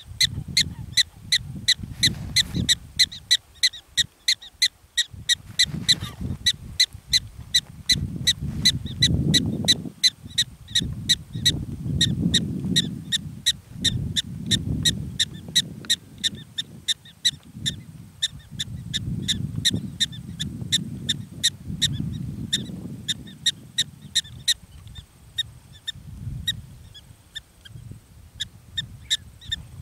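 Black-tailed prairie dog barking over and over: short, sharp calls at about three or four a second without a break, a little fainter for a few seconds near the end. A low rumble swells and fades underneath.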